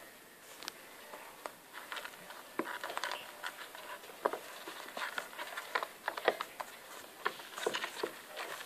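Irregular light taps and clicks of five-week-old kittens' paws and claws on wooden floorboards as they play.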